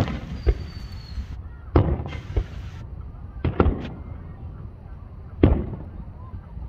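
Aerial fireworks going off in an irregular series of sharp booms, about eight in all, some close together, with brief hissing crackle between them.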